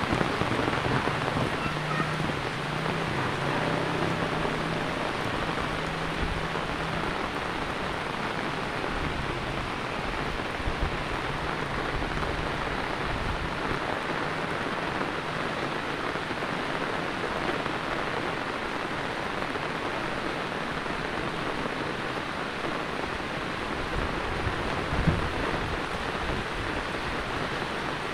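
Heavy rain falling steadily on a wet street, an even hiss. A faint low hum runs under it for roughly the first third, and there is a single short thump near the end.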